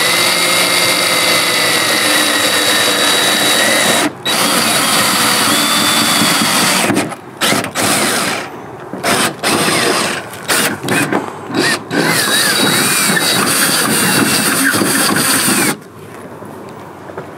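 DeWalt cordless drill with a twist bit boring through a car's sheet-metal hood, the motor running with a wavering whine as the bit cuts the metal. It runs steadily with one brief stop about four seconds in, then is pulsed in short bursts, runs steadily again and stops a second or two before the end.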